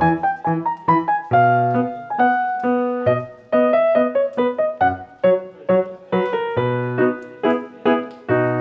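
Background piano music: a melody of separate struck notes and some chords, each note starting sharply and fading.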